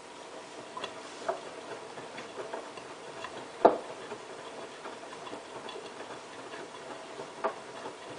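Hotpoint Ultima WT960 washing machine partway through a 60°C cotton wash, its drum turning with a load of wet towels, giving irregular knocks and clicks over a faint steady hum. The loudest knock comes about three and a half seconds in.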